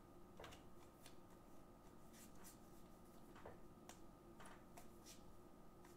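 Near silence: faint, irregular soft clicks and slides of baseball trading cards being flipped through by hand, over a faint steady hum.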